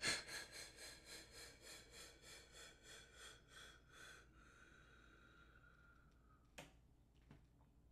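A struck bell ringing out with a pulsing waver of about four beats a second, fading away over about six seconds. A light click follows.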